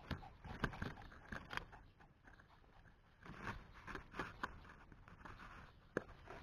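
Shrub leaves and thin twigs rustling and crackling as they are pushed and brushed aside, in irregular bursts of small snaps and scrapes.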